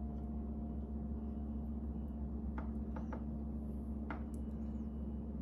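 A steady low hum of room tone, with a few faint light clicks about halfway through.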